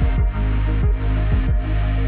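Electronic background music with a kick drum about twice a second over sustained bass notes.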